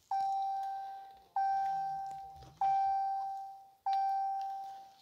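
2018 Ram 2500's in-cabin warning chime with the ignition switched on, the seatbelt reminder: a single clear electronic tone that strikes and fades, repeated four times about every one and a quarter seconds.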